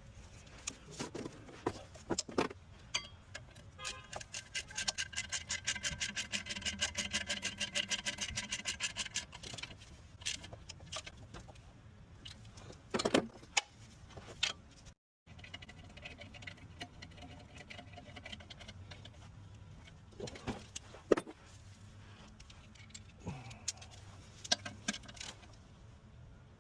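A ratchet wrench clicking in a fast, even run while driving in the torque converter-to-flex plate bolts, then a shorter run later, with separate metallic clinks and knocks of tools and bolts in between.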